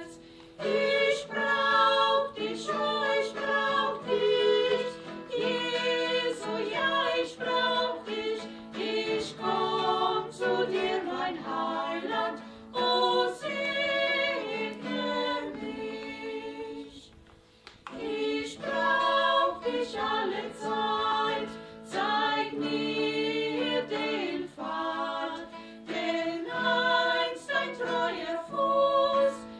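Women's vocal quartet singing a hymn in harmony, accompanied by a strummed acoustic guitar, with a brief pause between phrases about seventeen seconds in.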